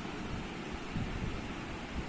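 Steady rushing noise with uneven low rumbles.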